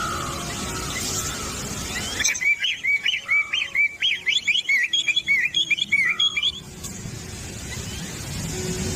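A bird calling a fast run of high chirps, about five a second, for some four seconds in the middle, then stopping abruptly.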